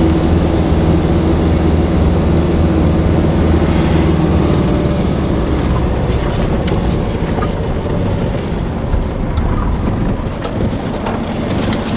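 Car engine running with road and wind noise, heard from inside the car. A steady engine hum is strongest for the first few seconds, then gives way to an even rushing noise with a few light clicks.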